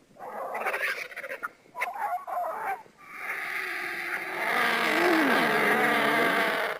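Creature sound effect for an invented prehistoric bird, built from animal-like calls: two short rough calls, then a long drawn-out call from about three seconds in that grows louder and cuts off suddenly.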